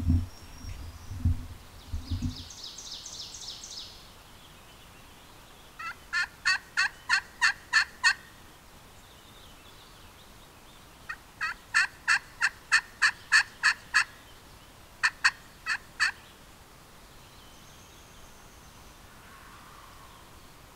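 Turkey yelps in evenly spaced runs of about four notes a second, three runs in all, with a faint distant turkey gobble near the end. A few low thumps in the first two seconds.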